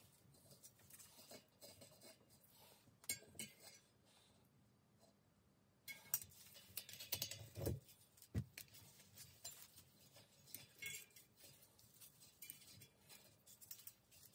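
Faint metallic clinks and ticks of a thin cone spanner working the locknut on a bicycle wheel hub, busier in the second half, with a couple of duller knocks about eight seconds in.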